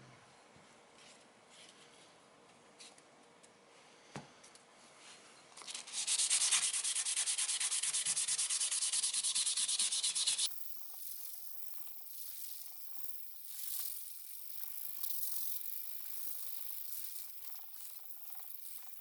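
Sanding with a rapid, steady rasp, loud for about four seconds in the middle, then cutting abruptly to quieter scraping and handling noises.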